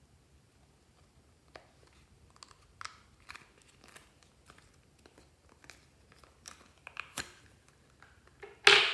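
Clear slime being handled and mixed by hand, giving irregular sticky clicks and crackles that come more often as it goes on. A louder crackling squish comes just before the end.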